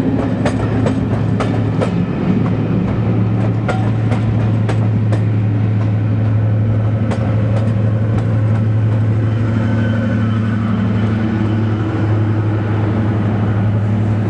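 Class 55 Deltic diesel locomotive passing at the rear of a train, its twin Napier Deltic engines giving a loud, steady low drone. Carriage wheels click over the rail joints in the first half, and the clicks stop as the locomotive comes by.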